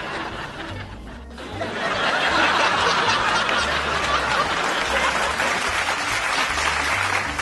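Audience laughing and applauding, swelling about a second and a half in, over background music with a steady bass line.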